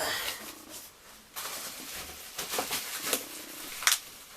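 Packaging being handled: plastic wrapping and cardboard rustling and crinkling, with a sharp click or knock near the end.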